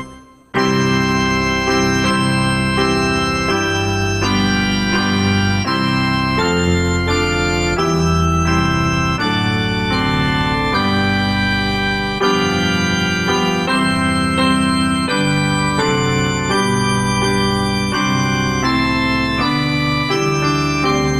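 Organ music: held chords that change every second or two, with a short break right at the start.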